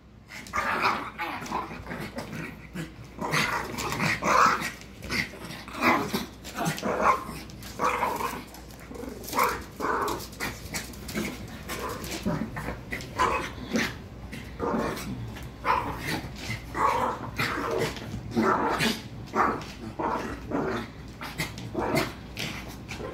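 Small dogs growling and giving short barks in quick, irregular bursts throughout, the rough noises of play-wrestling with a cat.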